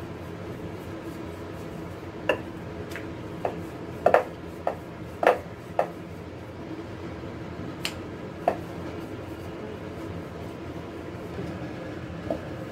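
Wooden rolling pin rolling out chapati dough on a stone rolling board, with a dozen or so irregular sharp knocks and clacks as the pin strikes the board, most of them in the first half. A steady low hum runs underneath.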